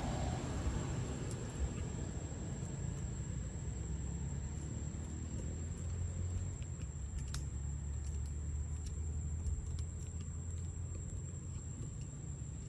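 Outdoor ambience: a low, steady rumble with a thin, high, continuous whine above it and a few faint clicks.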